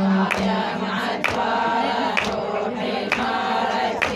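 A group of mourners chanting a Shia lament refrain together, with sharp chest-beating slaps keeping a beat of about one a second.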